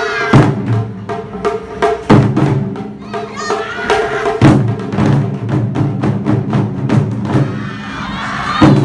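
Live-performance music with rapid, regular drum strikes over held low chords that change every couple of seconds. Short sung or called phrases come in near the start, about halfway, and near the end.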